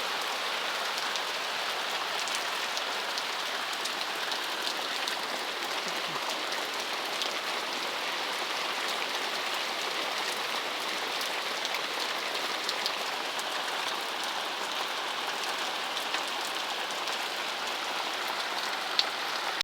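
Steady rain falling, with scattered drops ticking sharply on nearby surfaces and one louder tap near the end.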